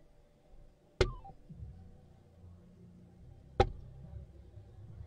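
Two soft-tip darts striking an electronic dartboard, two sharp thuds about two and a half seconds apart. A brief tone falls in pitch just after the first hit.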